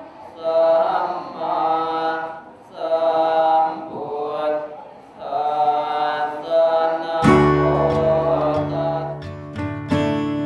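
A Buddhist monk chanting prayers into a microphone in phrases a second or two long. About seven seconds in, it cuts abruptly to guitar music.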